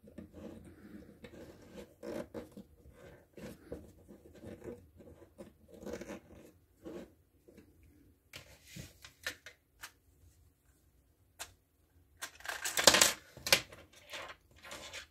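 Small plastic pegs clicking and scraping as they are pushed in at an angle and twisted into the plastic storage holders of an Insta Hang tool. Near the end, a louder burst of rustling and clicking as a clear plastic pack of pegs is handled.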